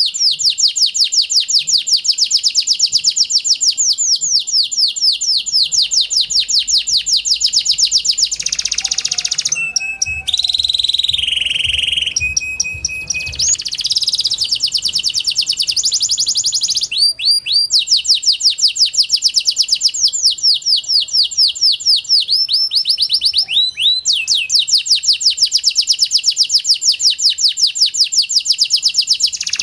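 Pied domestic canary singing: long runs of fast, high rolling trills. About a third of the way in there is a short passage of varied notes, with held whistles and gliding tones, and then the rapid trills resume.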